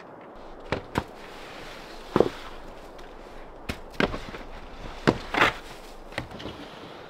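Shovels digging into deep snow, striking and scraping the buried material beneath: a string of separate sharp thumps and scrapes, roughly one every second.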